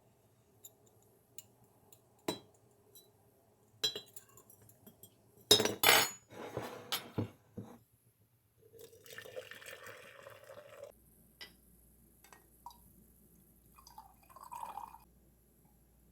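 Cookware being handled: a glass pan lid and a pan clinking and knocking, with a cluster of loud clatters about halfway through and a short scraping hiss after.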